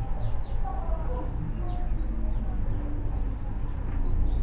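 Faint short bird chirps over a steady low rumble.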